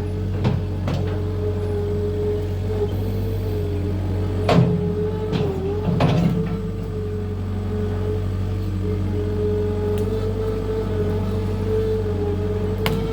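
Skid steer engine running steadily, with three sharp knocks or clanks: two in the middle and one near the end.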